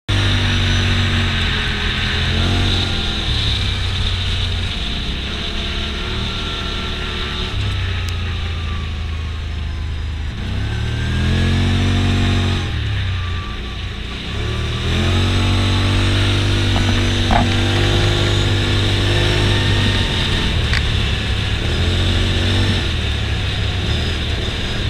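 Side-by-side UTV's engine running under way, its revs climbing and dropping several times as the throttle is worked.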